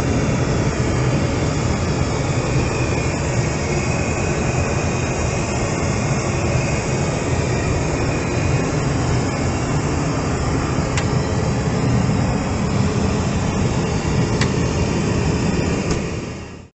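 Steady in-flight cabin noise of an Embraer E190 airliner in cruise, its two General Electric CF34 turbofans and the airflow making a constant low rumble, heard from inside the aircraft's rear lavatory. A few faint clicks come in the second half.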